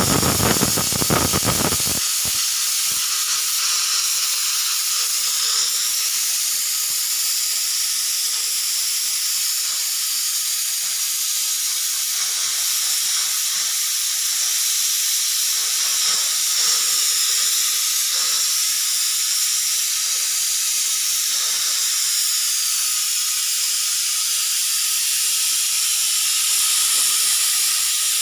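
Pressure cooker whistle venting steam in a steady, loud hiss with a faint whistle tone under it. For the first two seconds the release is rougher and fuller, with rapid rattling pulses, before it settles into the even hiss.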